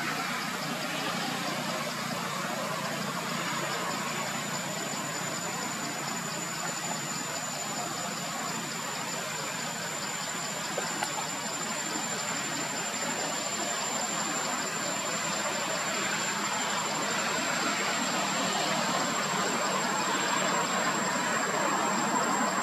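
Steady background drone, an even hiss with a thin high steady whine joining a few seconds in, growing a little louder toward the end.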